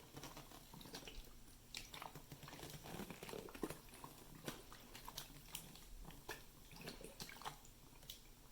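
Faint, irregular clicks and light taps, scattered unevenly throughout.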